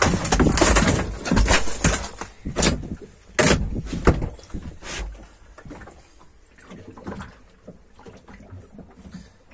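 Irregular knocks and thumps on a small fishing boat's deck, with handling noise. They come thick and loud for the first few seconds, then thin out to a few quieter clicks.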